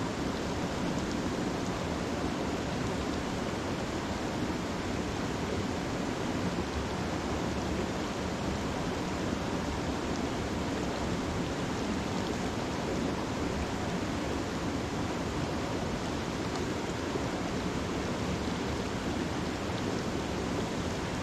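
Mountain trout stream running steadily over rocks: a constant, even rush of water.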